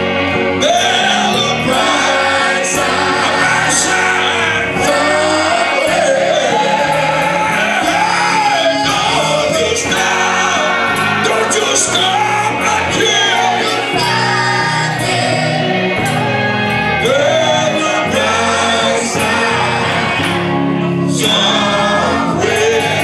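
Gospel choir and lead singers singing with live band accompaniment, including electric guitar, at a loud, steady level.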